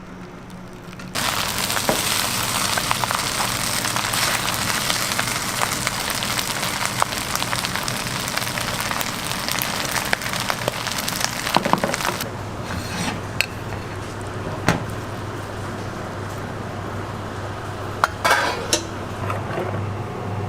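Food sizzling loudly in a hot pan, starting suddenly about a second in as it hits the pan and easing after about twelve seconds. A few sharp clinks and knocks of cooking utensils follow near the end.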